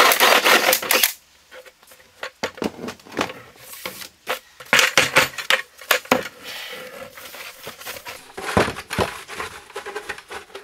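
Plastic 5-gallon bucket being worked by hand: a loud plastic scraping for about the first second as the disc cut out by the hole saw is freed, then a string of knocks, clicks and rattles as the bucket is turned and tipped, with loose plastic shavings shifting inside.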